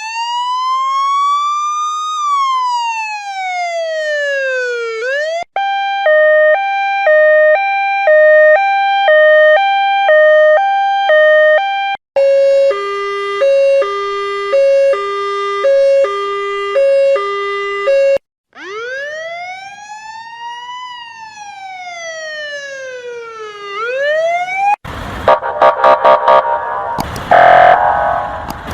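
A run of US emergency-vehicle siren sounds played one after another: a slow wail rising and then falling, a hi-lo two-tone siren switching about twice a second, a lower-pitched hi-lo two-tone siren, and a second wail. Near the end a loud, harsh horn sounds in short repeated blasts.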